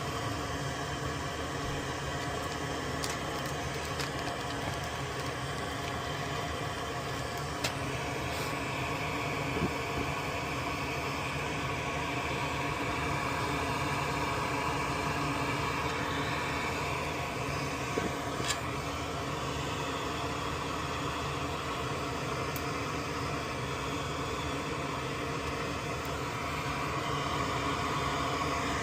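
Steady whirring hum of a fan, with a few faint small clicks.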